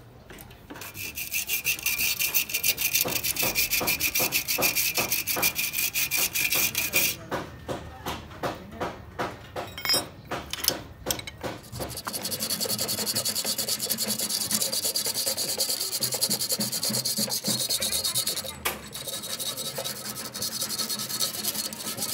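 Hand scraping on a car radiator during cleaning. It starts with quick back-and-forth strokes, slows to separate strokes about twice a second, and turns to a steadier hissing scrape for the last ten seconds.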